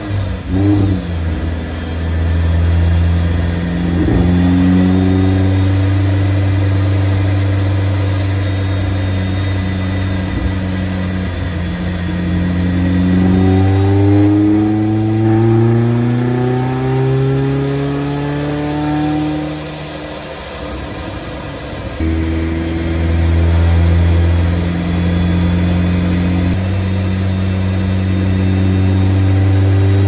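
Supercharged 1.8-litre four-cylinder of a 1995 Mazda Miata with a Rotrex blower, running hard on a chassis dyno. It holds steady revs, then climbs through the revs for several seconds past the midpoint with the supercharger's whine rising along with it. It drops back briefly and settles at steady revs again for the rest.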